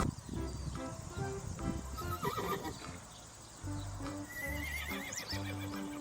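Quiet background music with a horse's sounds mixed in, faint hoof clip-clops and a neigh.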